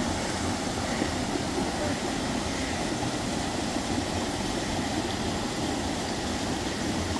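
Steady, even rushing of a waterfall.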